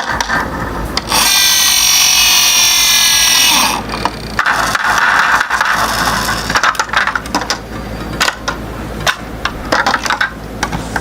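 A small toy model being handled, with a run of sharp plastic or metal clicks and rattles, and a loud whirring grind lasting about two and a half seconds starting about a second in.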